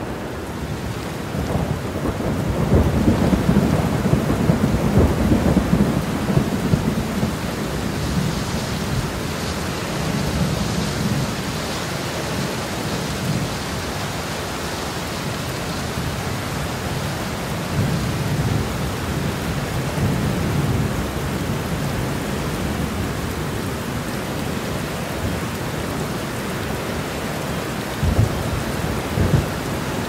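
Steady rain falling through a thunderstorm, with low thunder rumbles: a long, loud rumble from about two seconds in lasting several seconds, a weaker one around the middle, and another starting near the end.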